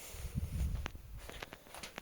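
Handling noise: low thumps about half a second in, then a few short sharp clicks.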